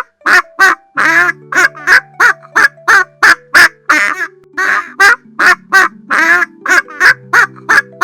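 Domestic fowl calling in a rapid series of short, loud calls, about two to three a second, over steady low held tones.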